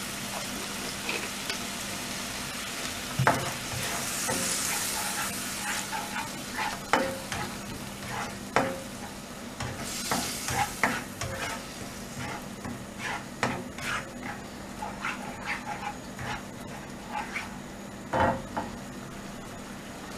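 Tomato and soy sauce sizzling in a nonstick wok while a plastic spatula stirs it, with repeated knocks and scrapes of the spatula against the pan. The hiss swells louder twice, about four and ten seconds in.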